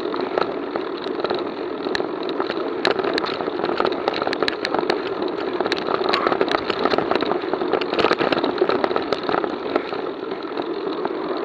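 Mountain bike being ridden along a dirt track, heard through an action camera: steady wind and tyre rumble on the microphone, with frequent sharp clicks and rattles as the bike runs over the rough surface.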